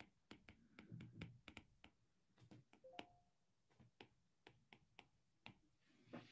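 Faint, irregular light taps and clicks of a stylus on a tablet screen during handwriting, about twenty in quick succession.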